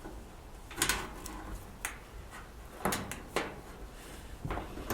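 A handful of short knocks and scrapes, about five spread over a few seconds, as a dryer power cord is fed through the opening in the back of the dryer.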